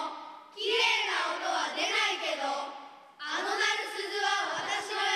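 Children's voices reciting a poem together in unison, phrase by phrase, with a short break about half a second in and another around three seconds in.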